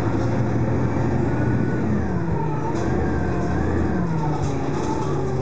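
Detroit Diesel Series 50 diesel engine of a New Flyer C40LF bus, heard from inside the passenger cabin, running under way with its pitch falling and rising in several glides as the engine speed changes.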